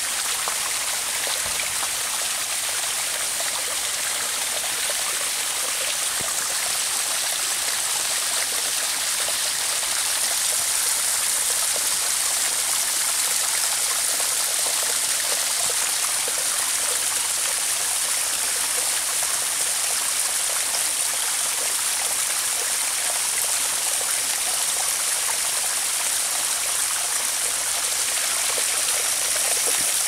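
Small waterfall spilling over a layered rock ledge into a shallow pool: a steady rush of falling water, mostly a high hiss with little low rumble.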